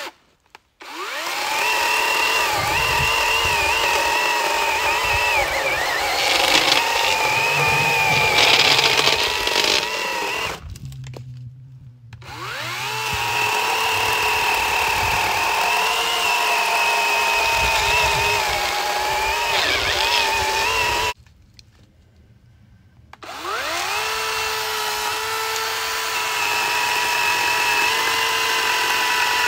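Cordless battery-powered electric chainsaw running with a steady motor whine while cutting through a log. The motor stops three times, at the very start, about a third of the way in and about two thirds of the way in, and each time spins back up within a second or two; while cutting this lot the saw has been conking out and restarting, which the owner puts down to the saw and its battery getting very warm.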